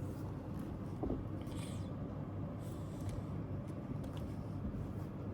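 Steady low hum of room or machine background noise, with a faint brief rustle about one and a half seconds in.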